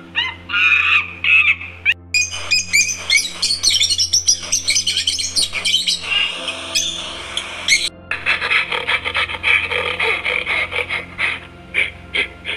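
Birds chirping and calling in quick, dense runs of short high notes over a steady low hum. The sound changes abruptly about two seconds in and again about eight seconds in, as if separate recordings were joined.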